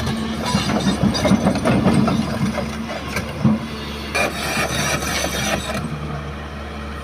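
Hyundai excavator's engine running under a rough, irregular scraping and crunching of the bucket working in sand, with a knock about three and a half seconds in.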